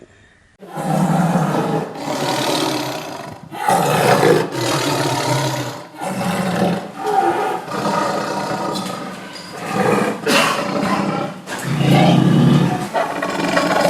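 Bengal tiger roaring: a run of loud roars one after another with short gaps, starting about half a second in.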